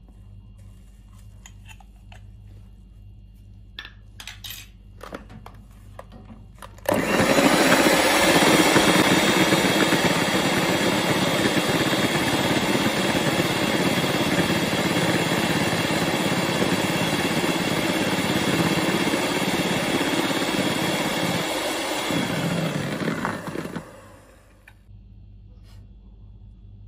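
Electric hand mixer running steadily for about seventeen seconds, its beaters whisking a foamy egg batter in a bowl; it switches on abruptly after a few light clicks and taps and cuts off sharply near the end.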